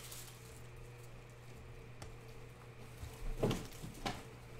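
Glossy trading cards being slid and flipped through by hand, with soft card-on-card sounds and two short knocks about three and a half and four seconds in. A steady low hum runs underneath.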